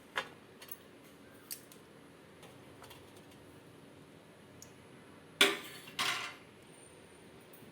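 Kitchen utensils clinking against an idli plate and serving plate: a few light clicks, then two louder clanks about half a second apart, each with a short ring, as steamed balls are moved from one to the other.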